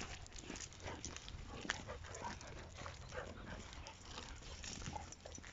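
Two Dalmatians greeting each other, sniffing and shuffling about on a gravel path: a scatter of quiet short sniffs and scrapes.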